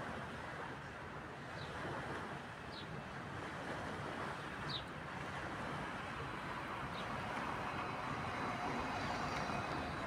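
Steady rushing background noise, like distant traffic, with a few short high chirps.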